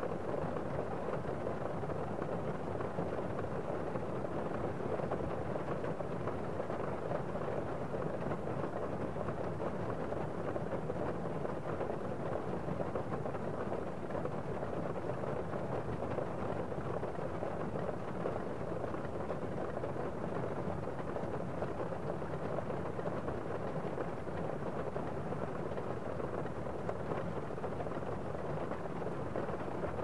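Heavy rain heard from inside a building: a steady, muffled rush with the high hiss dulled.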